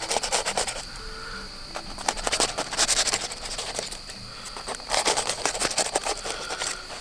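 Knife blade piercing and slitting a cooked aluminium foil packet, the foil crinkling and scraping in three short bursts: at the start, about two and a half seconds in, and about five seconds in. Crickets chirp steadily in the background.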